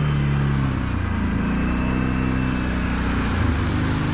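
Kawasaki KVF 750 Brute Force ATV's V-twin engine running at low speed through mud, its pitch dipping and rising a few times as the throttle changes.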